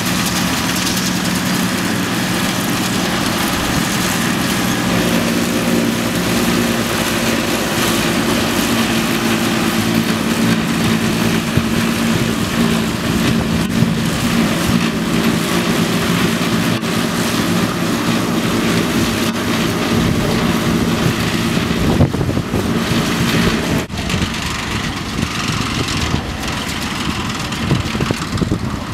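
John Deere tractor engine running steadily under load as it drives a trailed Mengele forage harvester picking up grass and blowing it into a silage trailer, with the second tractor's engine alongside. The engine drone changes abruptly about three-quarters of the way through.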